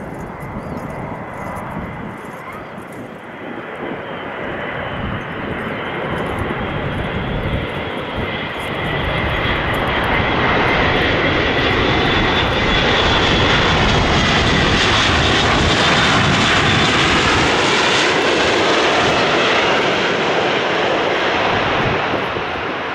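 Airbus A400M's four turboprop engines with eight-bladed propellers, running on a landing approach: a heavy drone with a high whine over it. It grows steadily louder as the aircraft comes closer, is loudest for the last half as it passes close by, then eases a little near the end.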